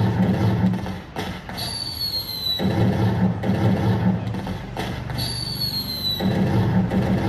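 Electronic firework sound effect from an LED fireworks controller: a falling whistle of about a second for the launch, followed by a low rumbling crackle for the burst. The cycle repeats about every three and a half seconds, with whistles about one and a half and five seconds in.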